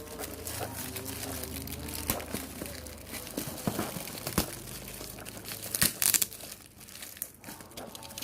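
Wrapping of a delivery parcel crinkling and tearing as it is pulled open by hand, with irregular crackles and a few sharp snaps.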